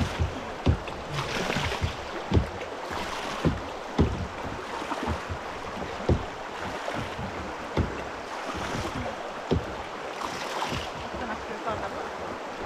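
Whitewater of a small river rapid rushing steadily past the kayaks, swelling in a few brief hissing surges. Scattered short low knocks and thumps run through it.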